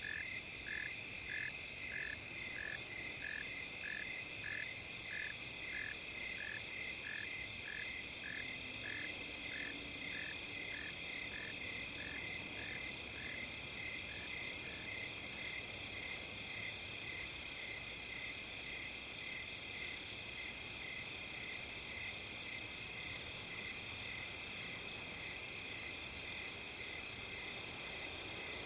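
Chorus of autumn crickets, including bell crickets (suzumushi), a steady high ringing. Over it a separate chirp repeats about twice a second and fades away around halfway.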